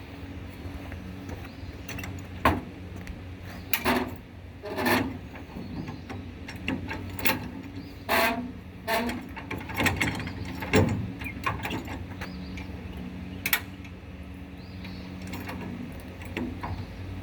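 Irregular clanks and clicks of tool work on a trailer wheel, over a steady low hum.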